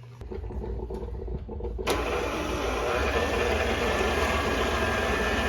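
Electric mixer beating cake batter: the motor starts with a low hum, then gets much louder about two seconds in and runs steadily.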